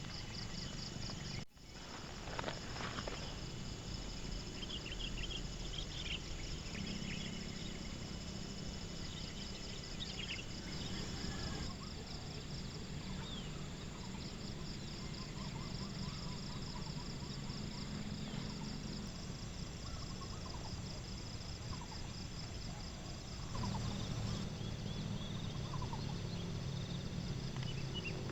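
Outdoor nature ambience: insects trilling steadily in fast, even pulses, with scattered short bird chirps. The sound cuts out briefly about a second and a half in.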